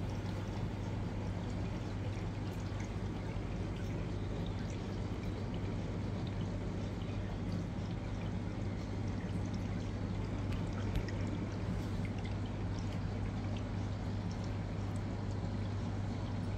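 Home aquarium's filter running: water trickling and pouring steadily over a constant low hum, with faint drips and ticks.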